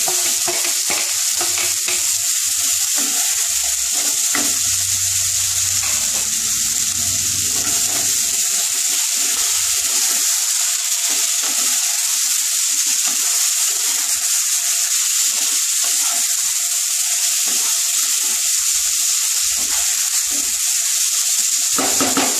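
Drumsticks and potato slices frying in oil in a non-stick pan, a steady sizzle, while a wooden spatula stirs and scrapes through them. There are a few short clicks in the first few seconds as the potatoes go in.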